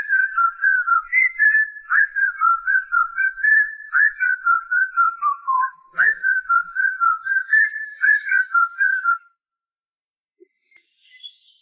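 A whistled melody on the soundtrack, a single clear tone skipping quickly up and down in a lively tune. It stops about nine seconds in and is followed by near silence.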